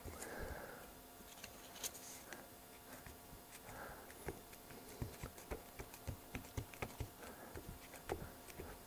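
Faint, irregular light taps and rustling of fingertips pressing XPS polystyrene foam strips down beside plastic Märklin C-track.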